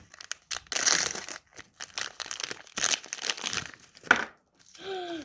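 Crinkly blind-bag packaging being torn open and crumpled by hand, in irregular rustling bursts with a sharp click about four seconds in.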